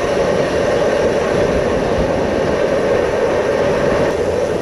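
Steady rush of wind and tyre noise from a moving bicycle, picked up by a handlebar-mounted action camera, without a break or change.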